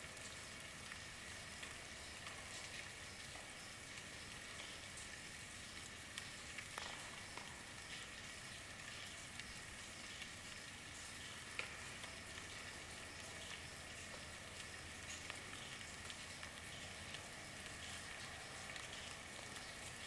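Steady rainfall, an even hiss with scattered individual drops ticking through it, one sharper drop a little past halfway.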